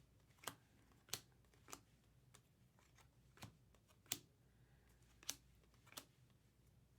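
Topps Chrome baseball cards being flipped through one by one by hand, each card giving a faint, sharp flick about once a second.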